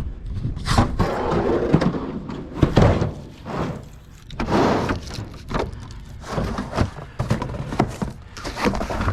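Insulated metal garage door panels being handled and loaded: irregular thunks and knocks with scraping and rustling as the panels shift against each other.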